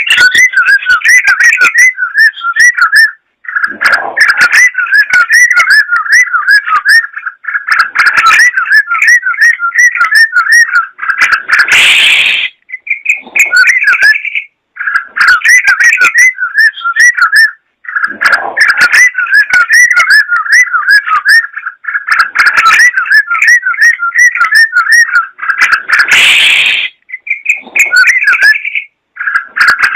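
Yellow-vented bulbul (trucukan) singing loudly: long runs of fast, chattering whistled notes, broken every few seconds by short pauses. Twice, at about twelve and twenty-six seconds in, a brief harsher burst cuts through the song.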